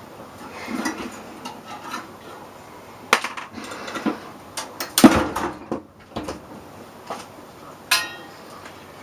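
Metal clanks and clinks of tools and parts being handled while a microwave oven is taken apart: scattered sharp knocks, the loudest about five seconds in.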